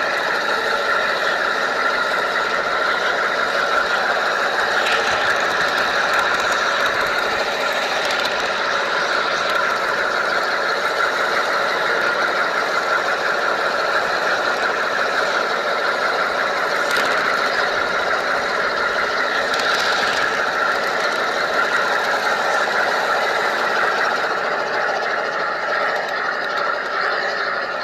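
G scale model train running along its track, heard from a camera riding on it: a steady mechanical whirring and rattling of wheels and drive, with a few short clicks.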